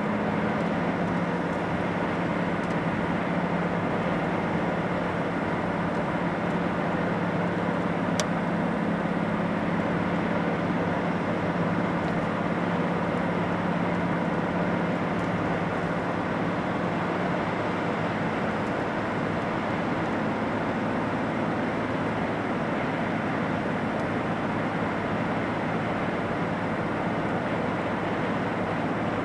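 A car driving at steady speed: constant tyre and road noise with a low engine hum, and a single brief click about eight seconds in.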